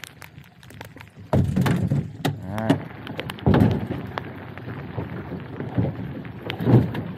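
Hollow knocks and thumps as a cooler and a person's feet land in a small boat moored against a wooden dock, over a steady patter of rain. The loudest thumps come about a second in, near the middle and near the end.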